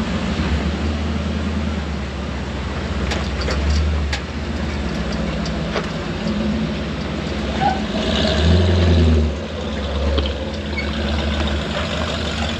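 A vehicle engine running steadily as it drives, a low drone that swells briefly louder about two-thirds of the way through, with a few sharp clicks or knocks about three to four seconds in.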